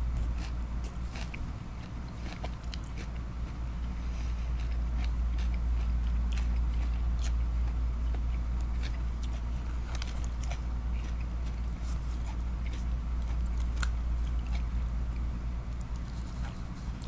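Close-up chewing and biting of food, with scattered short clicks from a plastic fork against plastic takeout containers, over a steady low hum.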